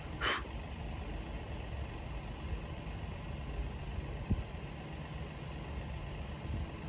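Low, steady rumble of idling engines. A short, higher sound comes about a quarter second in, and a single sharp click a little after four seconds.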